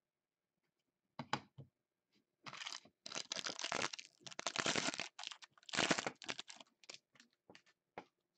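Foil trading-card pack being torn open and crinkled by hand: a few crackles, then a dense run of tearing and crinkling from about two and a half to five seconds in, another burst around six seconds, and scattered crackles after.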